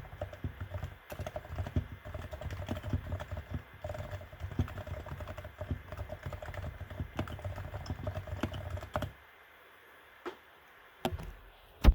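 Realforce R2 TKL keyboard with silent 45 g Topre switches being typed on quickly: a dense run of muted keystrokes that stops about nine seconds in. A few separate clicks follow, the last one the loudest.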